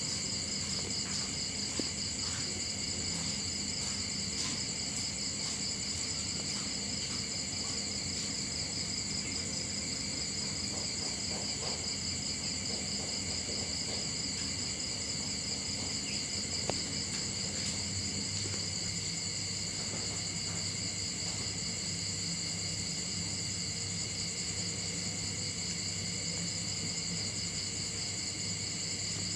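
Steady high-pitched chorus of night insects such as crickets, a continuous trill in several layers.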